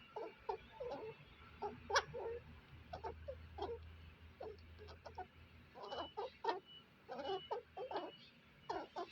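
A squirrel calling in a string of short, irregular chirps, a few per second, with a sharper, louder one about two seconds in.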